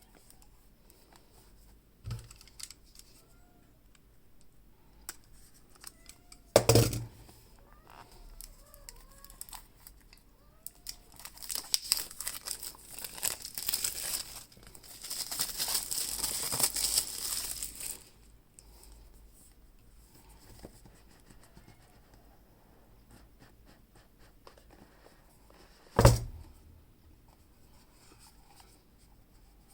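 Packaging being opened: plastic wrap or film tearing and crinkling in a long stretch in the middle, with a few sharp knocks of the box or its contents being set down.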